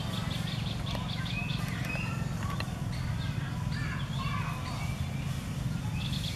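Outdoor ambience: scattered short animal calls, some gliding in pitch, over a steady low rumble.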